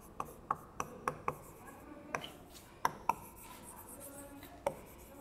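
Writing on a board: a string of irregular sharp taps, with scratchy strokes between them, as words are written out.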